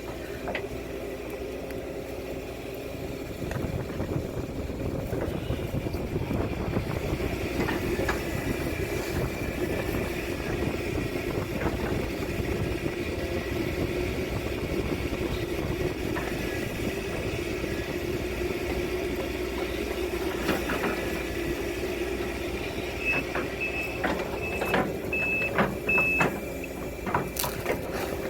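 Case CX210D excavator's diesel engine running steadily while digging ditch, with knocks and clunks near the end. A short series of about five high beeps sounds near the end.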